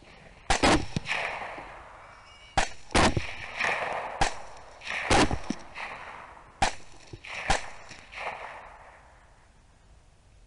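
A string of about nine rifle shots over some eight seconds, several in quick pairs, each followed by a rolling echo.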